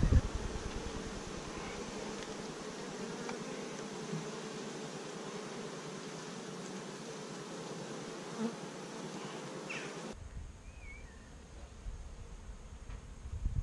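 A colony of honey bees buzzing steadily around a brood frame lifted out of the hive, a dense drone of many bees. A brief thump sits at the very start, and about ten seconds in the buzzing suddenly drops to a quieter hum.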